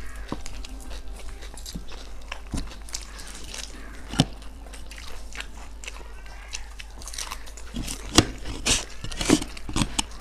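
Two people chewing whole mouthfuls of dahi fuchka, crisp puri shells filled with yogurt, with wet mouth sounds, crunches and sharp clicks. The loudest clicks come about 4 seconds in and several times near the end, over a low steady hum.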